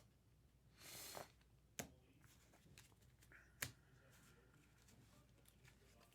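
Quiet handling of Topps Chrome trading cards: a short sliding rustle about a second in, then a couple of light sharp clicks.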